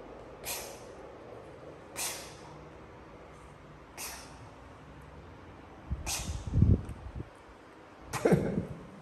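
A man blowing breaths out through pursed lips as if asleep: five short hissing puffs about two seconds apart, the last two heavier and with a low, snore-like rumble.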